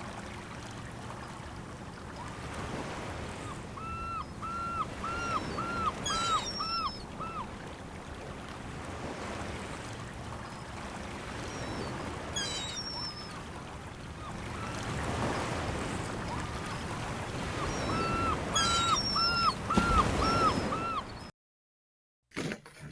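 Seaside ambience: surf washing in swells under a gull giving a run of about eight rising-and-falling calls, twice, with small birds chirping high above. It cuts off abruptly near the end.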